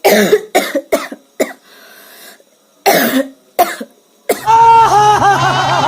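A woman coughing: about six short, separate coughs over the first four seconds. About four seconds in, a loud, steady warbling tone with a low hum beneath it takes over.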